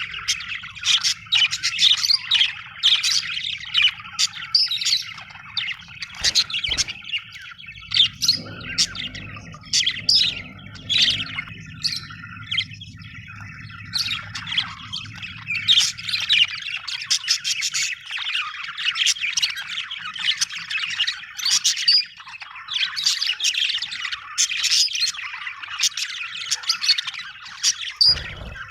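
Budgerigars chirping and warbling, a busy run of rapid chirps and squawks. A low steady hum sits underneath for the first half and stops partway through.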